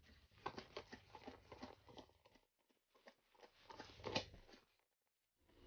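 Near silence, broken only by a few faint clicks and a slightly louder tick about four seconds in.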